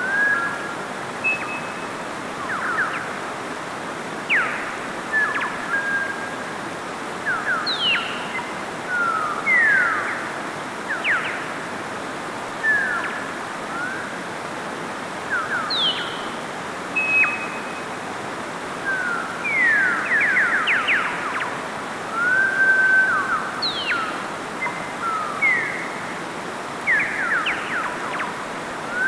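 Mountain stream rushing over rocks, a steady even hiss. Many songbirds are chirping and whistling over it, with short quick notes and sweeps coming every second or so.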